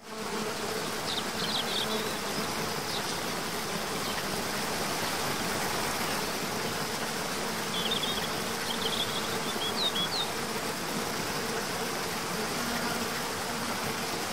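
Waterfall rushing steadily, with a faint steady hum underneath. A few short high chirps come about a second in and again around eight to ten seconds.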